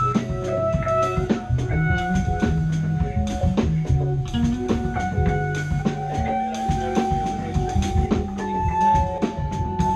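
Live instrumental funk-fusion power trio playing: electric guitar, bass guitar and drum kit, with a moving bass line under steady drum hits. Long held notes step upward in pitch over the second half.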